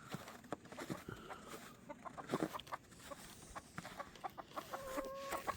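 A flock of chickens clucking, with many short scattered calls and one longer, steady-pitched call near the end.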